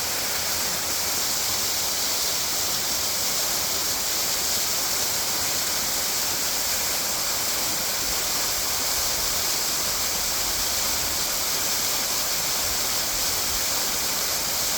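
Waterfall: water falling and splashing, a steady hiss that doesn't change.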